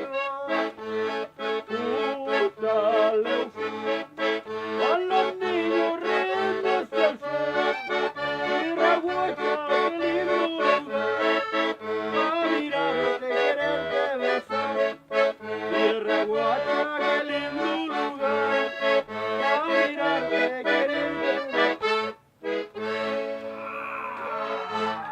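Background music with a steady beat over a repeating bass line. It drops out briefly about 22 seconds in, then comes back with a different, thinner texture near the end.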